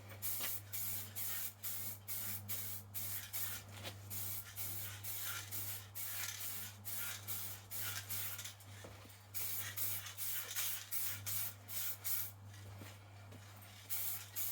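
Aerosol can of general-purpose acrylic spray paint hissing in many short bursts, with brief pauses, as light coats are dusted onto an RC car body. A low steady hum lies underneath.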